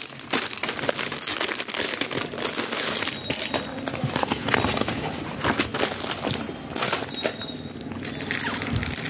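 Clear plastic garment packets crinkling and rustling continuously as a packaged hoodie is handled and unpacked by hand, a dense run of small crackles.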